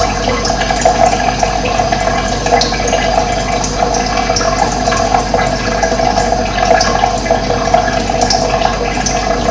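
Running water flowing steadily, with brief high bird chirps scattered through it.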